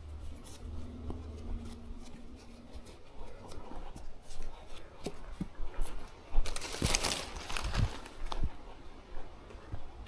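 A hiker moving along a rough trail: irregular footsteps, clicks and crackles, with a louder rustle about six and a half seconds in that lasts about a second.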